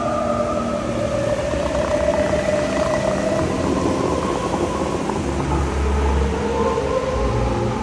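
Dubai Fountain show music with long held notes that slide slowly downward, over the steady rush of the fountain's water jets.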